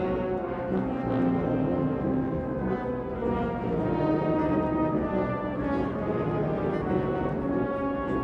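Symphonic wind orchestra playing live, a full band sound of held, overlapping chords with the brass to the fore.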